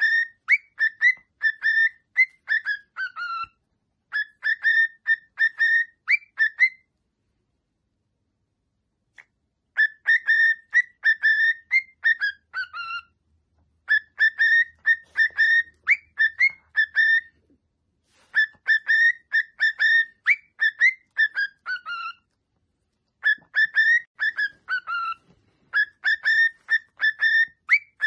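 Male cockatiel singing its whistled song: repeated phrases of quick, clear whistled notes, each phrase ending on a falling note. There is a pause of about three seconds partway through before the song resumes.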